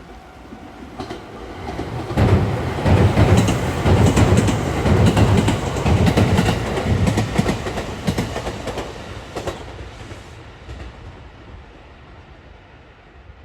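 JR West EF65 electric locomotive running light past, its wheels clicking over rail joints; the sound builds over the first two seconds, stays loud for about seven seconds and fades away near the end.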